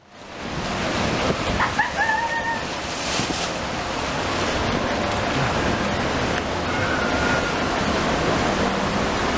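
Water rushing and splashing through a cruise-ship water slide's run-out troughs, a steady hiss, with wind on the microphone.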